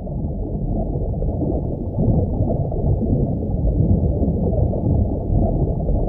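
Underwater ambience sound effect: a muffled, low rumble of moving water, growing louder over the first two seconds and then steady.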